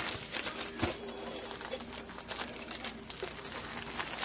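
Scattered clicks and light crinkling from disposable aluminium foil pans being handled, over a steady low hum.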